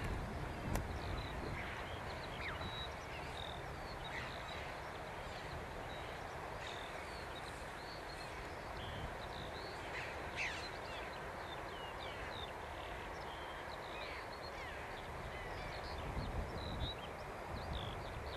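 Choughs calling, many short high calls one after another, over wind rumbling on the microphone.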